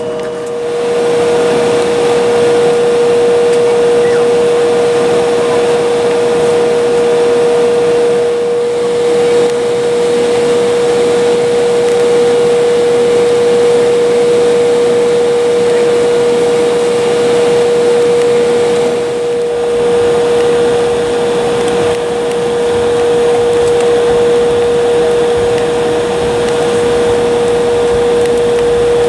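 Cabin noise of an Embraer E-175LR taxiing: its GE CF34-8E turbofans running at taxi power as a steady drone with a constant high whine, dipping slightly about twenty seconds in.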